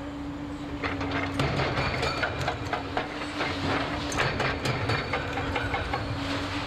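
Demolition excavator working with a steady engine and hydraulic hum, with frequent sharp clanks and knocks of metal and concrete being broken.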